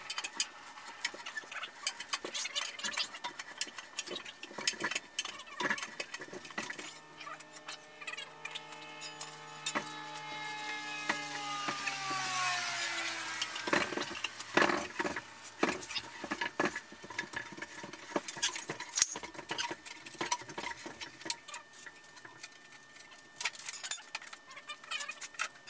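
Scattered metal clanks, clicks and knocks of tools and machine parts being handled around a Bridgeport milling machine. About seven seconds in a droning hum starts, sinks in pitch and stops a few seconds later.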